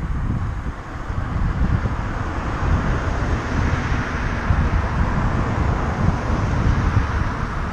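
Wind buffeting the microphone of a moving bicycle's camera, with a car overtaking close by: its tyre and road noise swells a few seconds in and fades as it pulls ahead.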